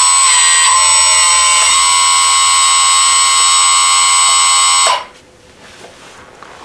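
Electric hydraulic pump of an RC4WD Bobcat R350 1:14 scale hydraulic track loader, whining loudly and steadily at a high pitch while the lift arms and bucket are lowered, with brief dips in pitch as the valves are worked. The whine cuts off suddenly about five seconds in.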